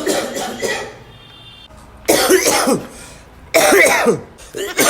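A person with a cold coughing hard in four fits of several rapid coughs each, the fits coming closer together toward the end.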